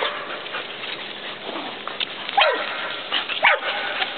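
Puppies yipping and barking, with two loud, short yips that fall in pitch about a second apart in the second half.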